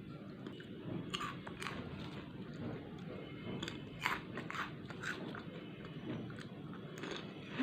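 A person biting and chewing crisp chips, with a series of irregular sharp crunches, the loudest about four seconds in.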